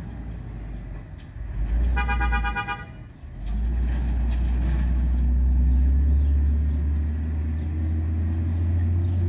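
Heavy garbage truck's engine rumbling, a short horn toot about two seconds in, then the engine pulling harder and growing louder as the truck moves off.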